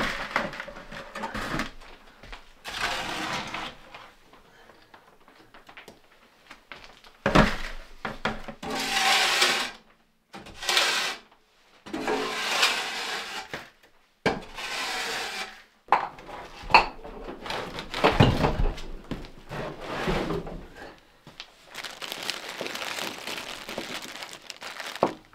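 A metal shovel scraping and clanking against a rusty steel wood stove as ash and debris are cleared out, in a series of separate short bouts. Plastic wrapping rustles near the end.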